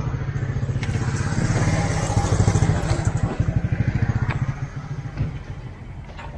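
A jeep's engine running with a quick, even low throb that grows louder to a peak about two and a half seconds in and then eases off.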